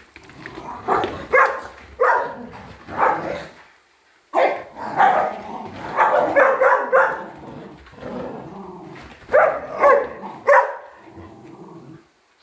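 Dogs barking in irregular bursts while they play-wrestle, with the longest run of barks in the middle and another quick cluster near the end.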